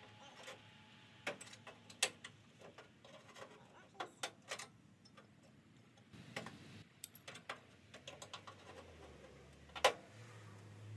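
Hand metal shears snipping through the rusted sheet steel of a VW Beetle's front apron: a series of short, irregular clicks and snips, the sharpest about two seconds in and near the end.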